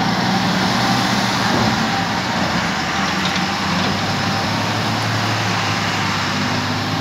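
Diesel engines of a dump truck and a backhoe loader running steadily under load, the backhoe's front bucket pushing the truck, which is stuck in mud.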